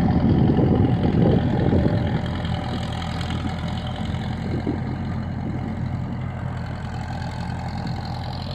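A vehicle or machine engine running steadily. It is louder and rougher for the first couple of seconds, then settles to a steady, even run.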